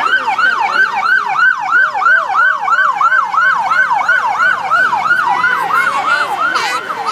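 Police siren from a passing escort motorcycle, sounding in fast yelp mode: a rapid, even up-and-down wail, about four sweeps a second, loud and close.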